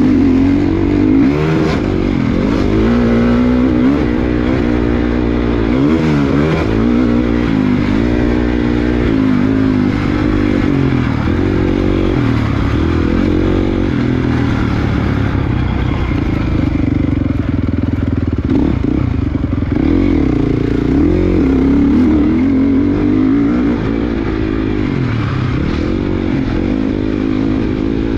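Small 58/65 cc youth motocross bike engine, heard close up from a camera mounted on the bike. It revs up and drops back over and over as the rider accelerates, shifts and backs off around the dirt track, with some clatter from the bike over the bumps.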